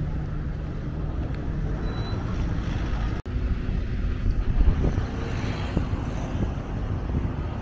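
Wind buffeting the microphone over a low, steady outdoor rumble, with a sudden momentary break about three seconds in.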